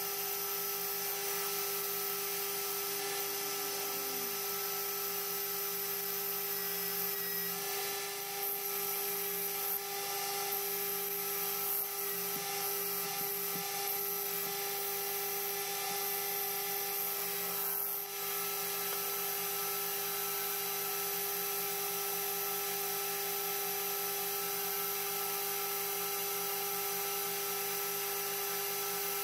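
AL960B metal lathe running steadily with a constant whine as its cutting tool turns an aluminium flywheel blank, throwing off chips. The level dips briefly about two-thirds of the way through.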